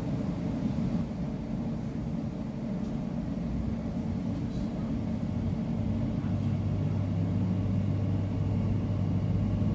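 Cabin sound of a Bombardier Class 345 electric train pulling out of a station: a low running rumble that grows gradually louder, with a steady low hum from the traction equipment coming in about six seconds in.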